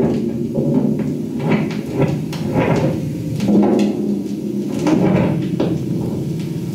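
Experimental turntable improvisation: irregular knocks and thuds, several a second, over a low steady hum.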